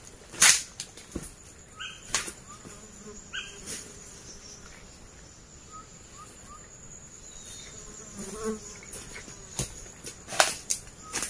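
Insects buzzing steadily, with sharp cracks and snaps of dry bamboo litter and twigs as a man crouches and moves among them; the loudest crack comes about half a second in, with more near the end.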